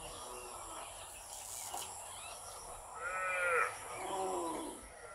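Two drawn-out animal calls, one after the other about three seconds in, the first rising then falling in pitch and the second wavering, over faint outdoor background noise.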